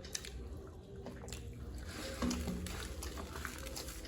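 Close eating sounds: chewing food, with scattered small crunches and mouth clicks over a steady low hum.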